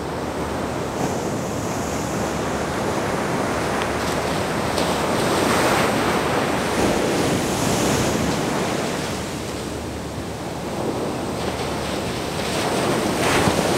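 Ocean surf breaking on a sandy beach, swelling and easing as successive waves come in.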